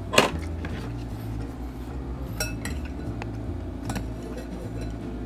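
Tableware being handled: a metal spoon clinking against a glass serving bowl and a plate. A brief clatter comes just after the start, followed by a few sparse, light clinks.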